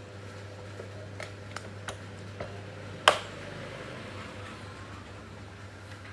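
A few small sharp clicks, then one louder sharp click about three seconds in, over a steady low hum.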